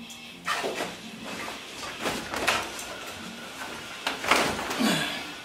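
Worn fabric convertible soft top being pulled and dragged off its frame: three bouts of rustling and scraping, the last and loudest about four seconds in.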